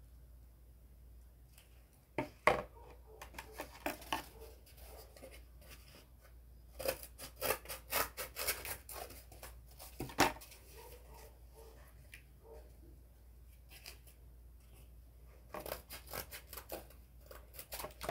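Scissors snipping through thin cardboard in three runs of quick cuts: about two seconds in, in the middle, and near the end.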